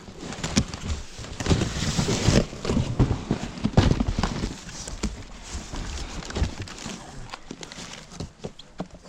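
Handling and rummaging through discarded items: an irregular string of knocks, clatter and rustling, loudest in the first half.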